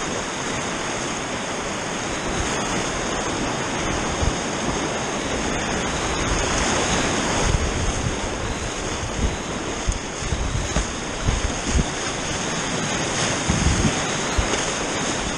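River rapids rushing and splashing around a whitewater kayak, close to a camera on the kayak's bow, with irregular low thumps from about halfway through.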